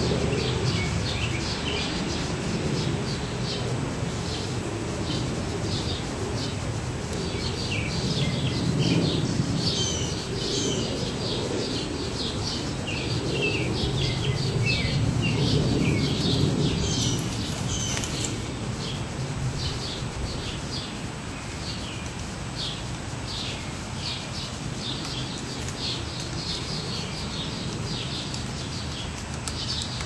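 Small songbirds chirping busily in quick, short notes, some of them gliding, with a steady low rumble underneath.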